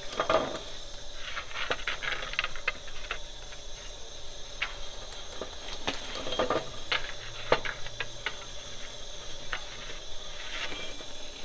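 Scattered clicks and short scrapes of a baker's long rod against the hot pebble bed of a sangak oven, over a steady hiss.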